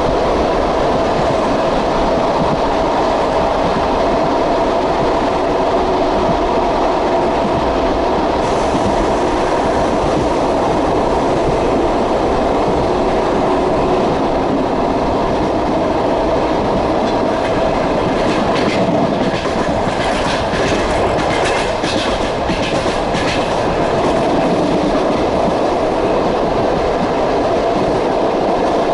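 Passenger train running along the track: a steady rolling rumble with a constant hum, and in the second half a run of rhythmic clicks as the wheels clatter over rail joints.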